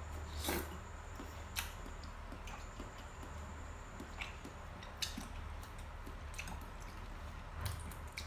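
Close-miked eating sounds: wet chewing and mouth smacks with scattered small clicks, a few sharper ones about half a second in, at about one and a half seconds, at five seconds and near the end.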